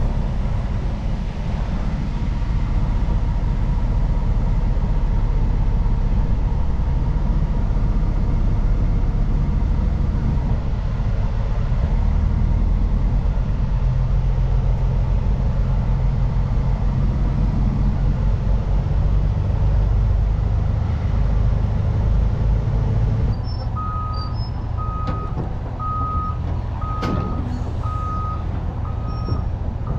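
Heavy diesel engine running steadily. About three quarters of the way through, a backup-style alarm starts beeping, about once a second.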